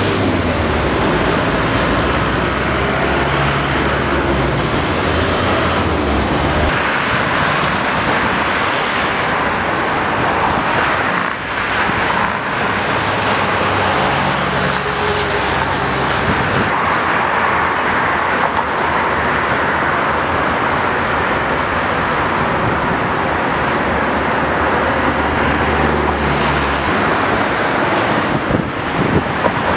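City road traffic: a steady wash of cars, vans and minibuses passing, with a low engine hum from heavier vehicles at times.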